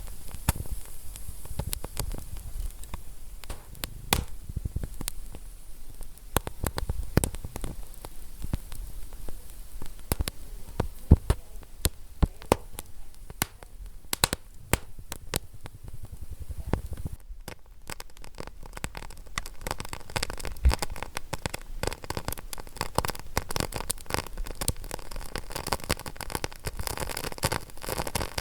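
Wood fire crackling: frequent sharp pops and snaps over a soft hiss, growing busier in the last third.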